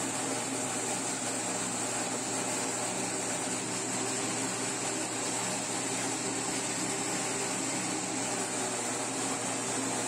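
Electric grain mill running steadily under load, grinding cacao beans, rice and cinnamon into meal, with a constant motor hum under the grinding noise.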